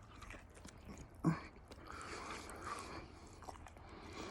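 Faint chewing and mouth sounds of a person eating a sandwich, with one short louder sound about a second in.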